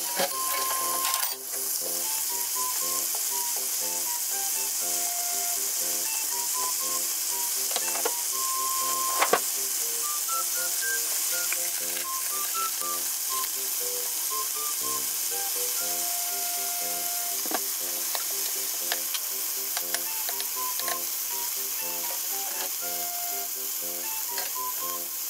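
Pork spare ribs, with onion and potato, sizzling steadily in hot oil in a frying pan, with a few sharp clicks. Light background music with a simple melody of single notes plays along.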